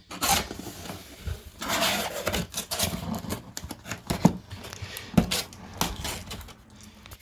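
Cardboard box being opened by hand: flaps and packaging scraping and rustling, with several sharp knocks.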